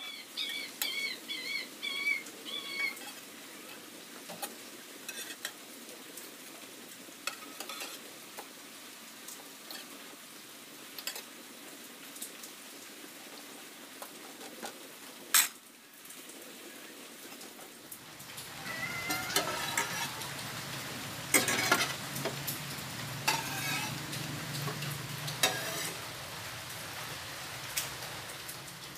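Bread toasting in a stone-coated nonstick grill pan with a faint steady sizzle, while a slotted metal spatula clicks and scrapes against the pan as the slices are turned and stacked. The scraping and clicking grow busier in the last ten seconds, and a brief high chirping is heard in the first few seconds.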